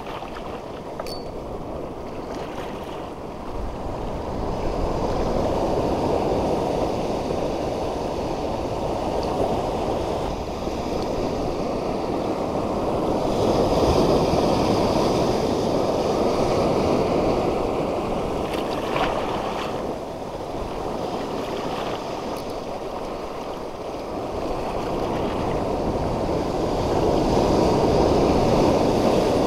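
Ocean surf washing over a shallow coral reef, a steady rush of water that swells and eases several times as waves come in.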